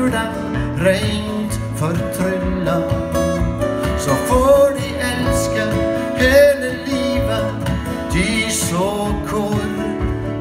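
Live acoustic song: two acoustic guitars played together with a man singing lead.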